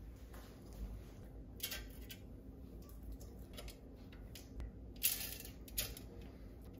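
Panko-crumbed raw chicken tenders being laid by hand into an air fryer basket: soft rustling and crunching of the crumb coating against the perforated basket, with a few brief louder scuffs, the loudest about five seconds in.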